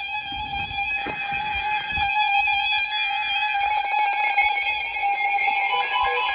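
Weather radio sounding its warning alarm for a tornado warning: a loud, steady, harsh alarm tone. Near the end a second alert joins in as a pulsing beep.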